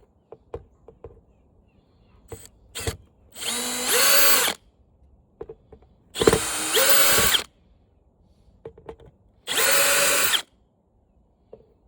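Power drill backing screws out, run in three short bursts of about a second each, the motor whine rising as each burst spins up. Small clicks and taps come between the bursts.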